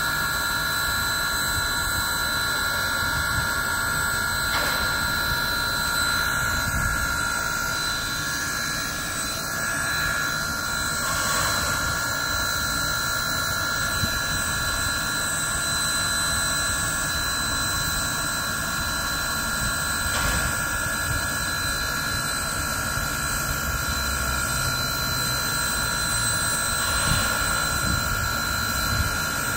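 Baldwin 0-6-0 steam locomotive standing with steam up: a steady hiss and low rumble with a constant high-pitched whine throughout.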